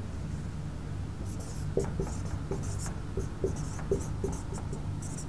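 Dry-erase marker squeaking and tapping on a whiteboard in short strokes as letters are written, starting about a second in.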